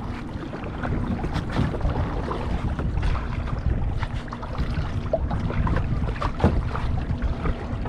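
Small choppy waves slapping and splashing against a kayak's bow, with many short splashes over a steady rumble of wind buffeting the microphone.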